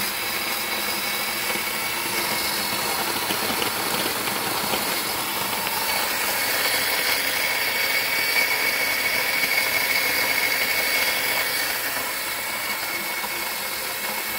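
Bodum electric burr coffee grinder running steadily, grinding coffee beans at its Chemex grind setting: an even grinding noise with a high whine held over it.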